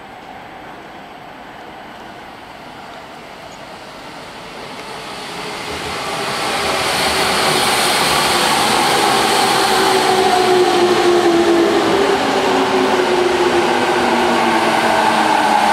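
JR 209 series 500-subtype electric train pulling into a station, its noise swelling from about five seconds in, then several tones sliding slowly downward in pitch as it brakes. The uploader calls it an abnormal noise and wonders whether the train is all right.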